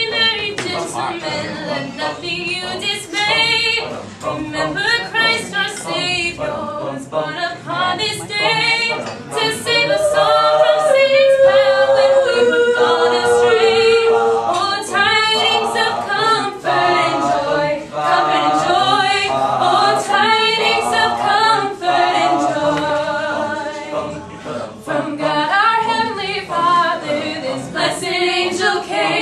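Mixed-voice high-school a cappella choir singing without instruments, several sung parts at once; about halfway through, an upper part holds notes that step downward.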